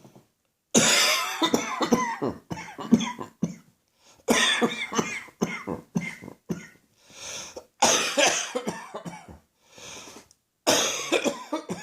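A person's coughing fit: four bouts of rapid, hacking coughs, each a string of many coughs in quick succession, with short in-breaths drawn between bouts. It is a persistent cough that has lingered for weeks.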